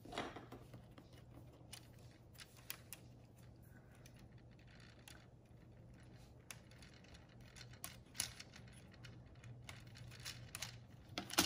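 Plastic LEGO Technic pieces clicking and rattling faintly as frames are handled and pressed onto the chassis, with a few sharper snaps, one of the loudest near the end.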